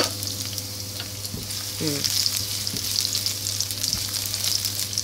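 Chopped garlic sizzling and crackling in hot oil in a wok, stirred with a spatula; the sizzle grows louder about two seconds in.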